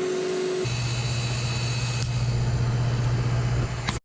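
Refrigeration condensing unit running: a steady machine hum with fan noise. Under a second in it changes abruptly to a lower, stronger hum, and it cuts off suddenly near the end.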